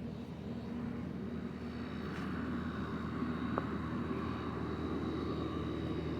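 Rheem heat pump outdoor unit running: a steady low hum from the compressor and condenser fan, with a faint high steady whine over it, growing a little louder about two seconds in.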